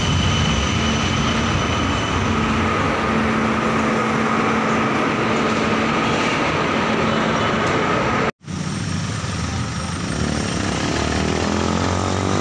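A light-rail train running alongside a station platform: a steady loud rumble with a high steady whine on top. It cuts off abruptly about eight seconds in, and street traffic noise with running vehicle engines follows.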